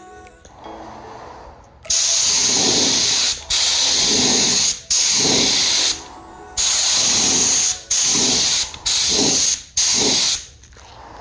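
Harbor Freight HVLP detail spray gun spraying paint in short passes: about seven blasts of compressed-air hiss, each a second or so long, starting and stopping as the trigger is pulled and released.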